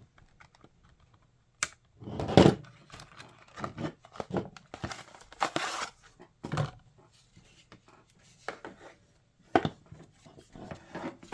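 Packaging of a power strip being handled and pulled open: irregular rustling and tearing with a few sharp knocks, the loudest about two and a half seconds in.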